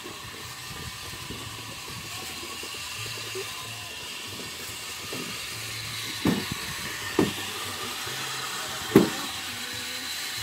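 Steady outdoor hiss with three short dull thumps in the second half, the last and loudest about nine seconds in.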